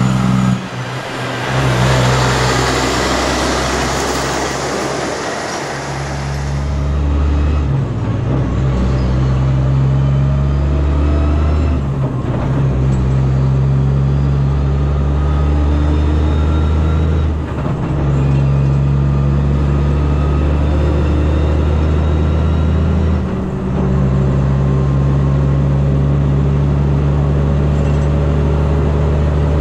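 Kenworth C509 heavy-haulage truck's diesel engine. First the truck comes up and passes close with a loud rush of engine and tyre noise. Then the engine is heard from on board, pulling steadily under a heavy load, with short dips every five or six seconds as it changes gear.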